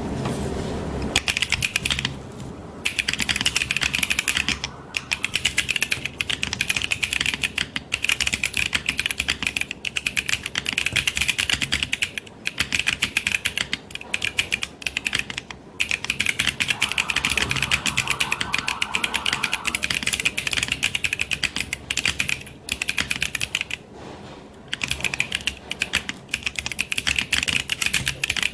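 Typing on a Bakeneko 65 mechanical keyboard with stock Neapolitan Ice Cream linear switches and GMK Hammerhead ABS keycaps: fast, continuous keystroke clacks, broken by a few short pauses.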